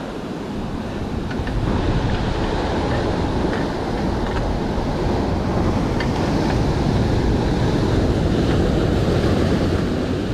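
Ocean surf washing against shoreline rocks: a steady, loud rush that swells about two seconds in, with wind buffeting the microphone.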